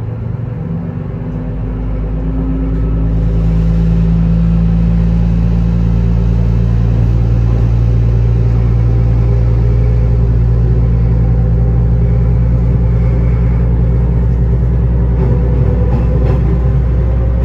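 KTR700 diesel railcar's engine under power as the train pulls away from a station, heard on board: its low rumble builds and rises in pitch over the first few seconds, then runs steadily and loud.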